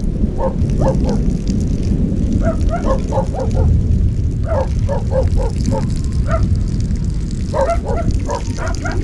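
Steady low rumble of wind buffeting the microphone in an open field during a thunderstorm. Over it come repeated short animal calls in quick runs of several at a time.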